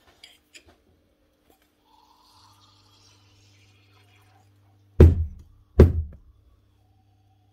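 Two heavy knocks about a second apart, the steel piston of a Bosch GSH 27 breaker being rapped down on the workbench to jar loose the striker that is stuck inside it with dried grease. A few light metal clicks come before them.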